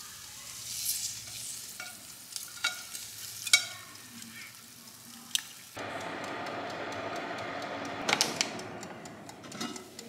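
Stainless metal tongs clicking against the wire rack of a halogen convection oven as pieces of grilled pork neck are turned, with faint sizzling. About six seconds in this gives way abruptly to the oven's fan running steadily, with a few sharp clicks near the end as the glass lid is handled.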